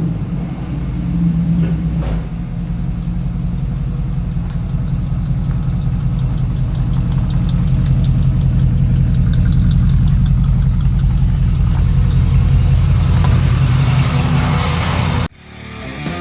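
Truck engine running with a steady low firing beat, getting gradually louder over about ten seconds, then cut off abruptly near the end.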